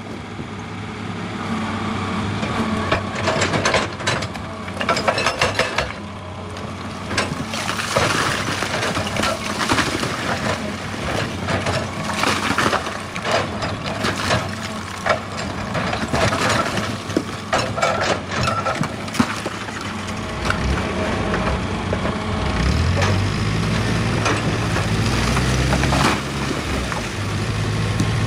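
Excavator at work on rock: repeated knocks and clatter of stone and metal. About two-thirds of the way through, its diesel engine comes up as a louder, steady low note.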